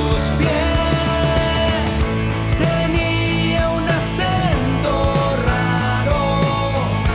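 Full band song mix with drums, bass and a sung lead line, played back through a compressor plugin in a blind comparison of compressors.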